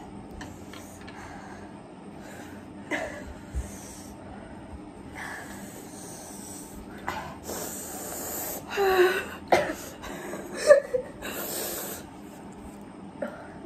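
People reacting to the burn of very spicy noodles: sharp hissing breaths and sniffs, gasps and coughs, with a couple of short voiced cries, the loudest about eleven seconds in.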